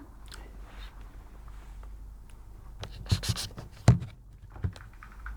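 Scraping and rubbing with a few sharp knocks, the loudest about four seconds in.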